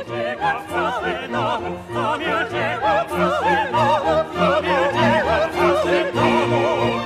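Operatic singing with wide vibrato, accompanied by a symphony orchestra holding steady chords underneath.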